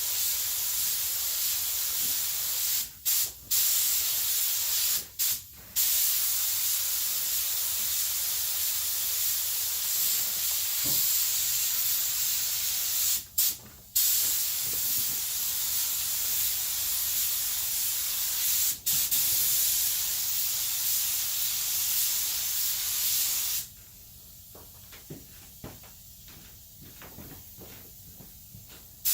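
Paint spray gun hissing as it sprays clear coat, the trigger let off briefly several times. The spraying stops about five seconds before the end, leaving only a few small knocks.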